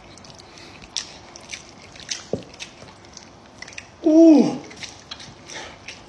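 Mukbang eating sounds: wet clicks and crackles of meat and skin being torn by hand from a cooked pig's head and chewed. About four seconds in comes a short, louder hum of the voice that falls in pitch.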